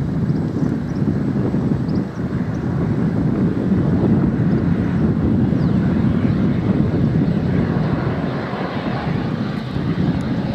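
De Havilland Canada Dash 8 Q300 twin-turboprop airliner on short final approach. Its Pratt & Whitney Canada PW123 engines and propellers make a steady low drone, and a higher whine builds in the second half as it comes closer.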